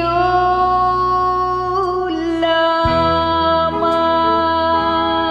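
A woman's voice holding a long final note of a Filipino love song over a karaoke backing track with sustained chords, the low backing changing about three seconds in.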